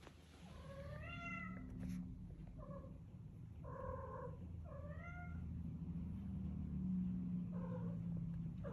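Domestic cat meowing in short, repeated calls, about six of them, some bending up and down in pitch, over a steady low rumble.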